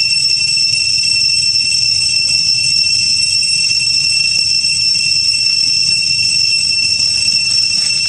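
Cicadas droning: a loud, steady high-pitched whine that never pauses.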